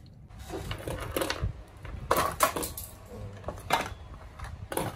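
Chopsticks tossing noodles on a glass plate, clicking and scraping against the glass several times in short clattery bursts.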